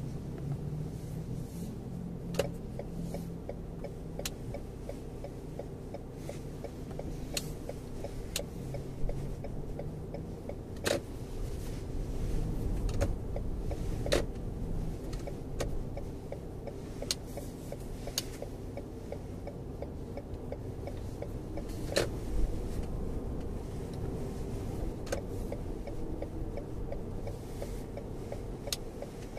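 Low, steady road and drivetrain rumble heard inside the cabin of a Lexus RX 450h hybrid driving at low speed, with scattered sharp clicks and knocks about ten times, at irregular intervals.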